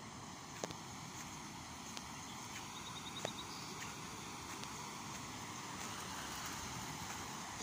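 Steady outdoor background noise, with a few sharp clicks, the loudest about three seconds in.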